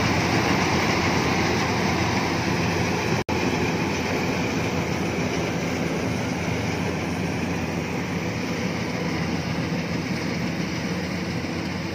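Iseki HC80 rice combine harvester running steadily while cutting rice, a dense mechanical drone with a low engine hum that grows gradually fainter as the machine moves away across the field. A split-second dropout cuts the sound a little over three seconds in.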